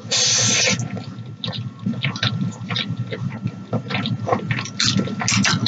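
A person eating noodles up close: a long loud slurp about the first second, then wet chewing with many short mouth clicks and smacks.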